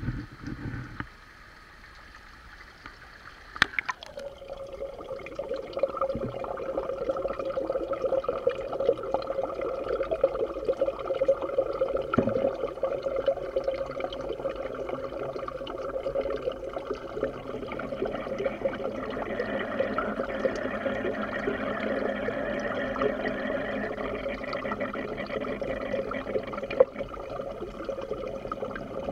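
Water splashing briefly as the camera housing goes under, a single sharp knock a few seconds in, then a steady bubbling, gurgling water noise heard underwater in an aerated fish vat.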